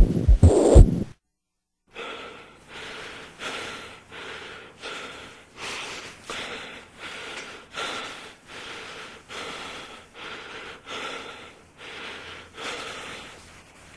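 Rapid, rhythmic breathing, about one and a half breaths a second. Before it begins, a run of heavy low thumps like a heartbeat stops about a second in.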